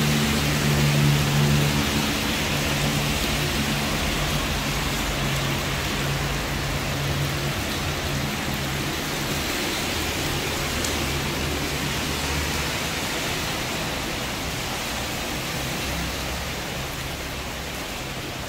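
Heavy tropical downpour: a steady hiss of rain that slowly eases as it goes on. A low engine hum from traffic sits under it for the first few seconds.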